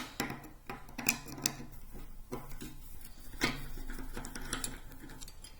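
Irregular light metallic clicks and ticks from a Proto 3/4-inch drive ratchet being taken apart by hand, with sharper clicks about a second in and again past three seconds.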